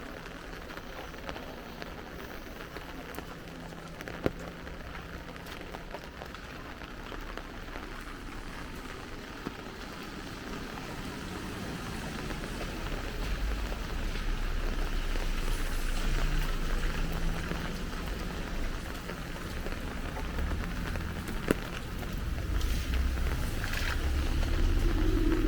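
Light rain falling on an umbrella, a steady hiss with scattered sharp drop clicks. A low rumble of street traffic grows louder through the second half.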